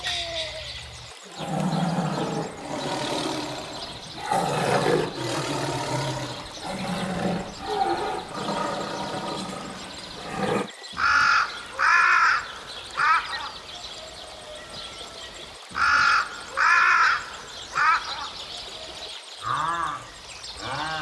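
A tiger's deep, drawn-out growling calls, each about a second long, for the first half. Then a run of higher, arching honk-like calls, mostly three in quick succession.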